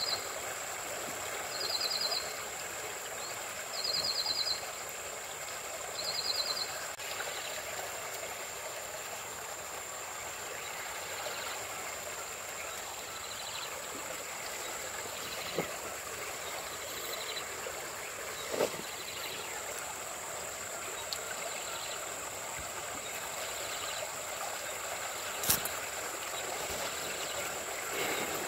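Shallow muddy stream flowing steadily with an even rushing sound. Over the first few seconds a high trilled chirp repeats about every two seconds, and a few sharp knocks come later, the loudest about 25 seconds in.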